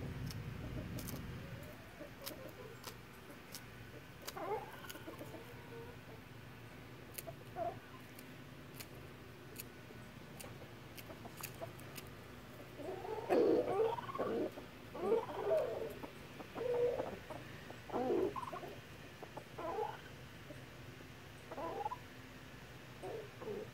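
Fowl clucking: a run of short, low clucks that starts about halfway through and repeats every second or so. Earlier there are sharp clicks of beaks pecking at kale leaves.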